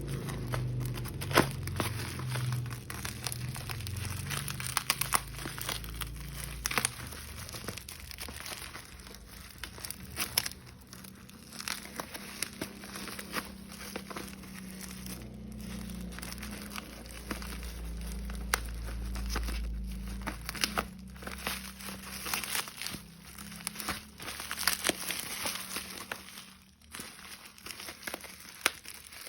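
Phone packaging being handled and opened: irregular crinkling and rustling with scattered clicks and small knocks.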